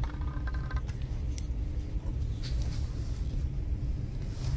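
Steady low rumble of a Lastochka electric train running, heard from inside the carriage. Over it, a click and a brief squeak as the plastic fold-down tray on the seatback is unlatched, then a few light clicks as it is lowered.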